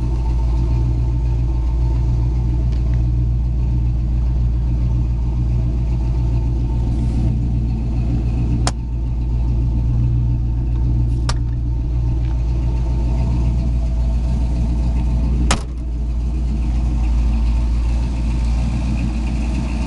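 406 cubic-inch small-block V8 idling steadily with a low rumble, punctuated by three brief sharp clicks.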